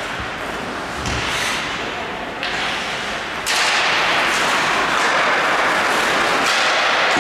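Ice hockey rink sounds: skate blades scraping and hissing on the ice, with a couple of low thuds. The scraping starts sharply in waves and grows louder and steady about three and a half seconds in.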